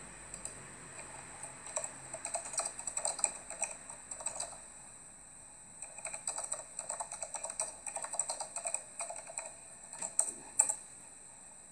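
Rapid typing on a keyboard, in two runs of quick keystroke clicks with a short pause between them. A single louder click comes near the end.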